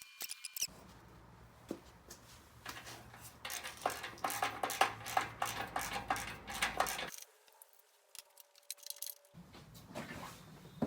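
Metal tools and engine parts clinking and rattling as they are handled, in a busy spell of quick clicks in the middle, which then stops abruptly.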